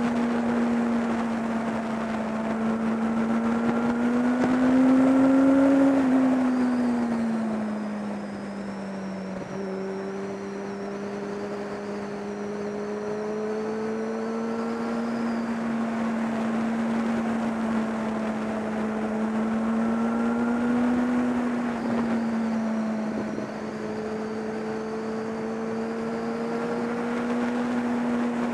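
Kawasaki ZX-10R inline-four engine at steady cruising revs over a constant rush of wind. The engine note climbs about five seconds in and falls back, then climbs and falls back again around twenty seconds.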